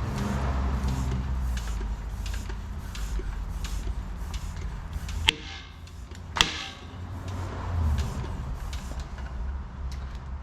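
A tubeless bicycle tire being pumped up with a floor pump, with two sharp pops about a second apart near the middle: the tire beads snapping into their seats on the rim.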